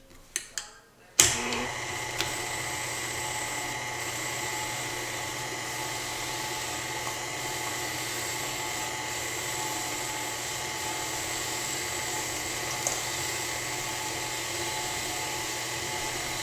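A few clicks, then about a second in a KitchenAid stand mixer's motor switches on and runs steadily with a constant high whine, driving the spiralizer attachment as it peels, cores and slices an apple.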